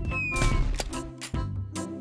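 Upbeat cartoon soundtrack music with regular drum hits and a short falling tone just after the start.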